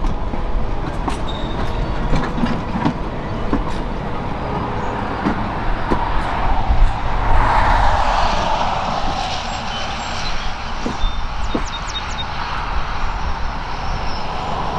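Narrow-gauge steam train rolling along the track, its wheels clicking over the rail joints in a steady rumble. A louder rushing swell comes about halfway through.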